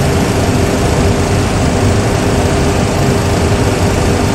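Boeing 737 Classic full flight simulator's cockpit sound during the climb after takeoff: steady engine and airflow noise with a low rumble and a steady hum.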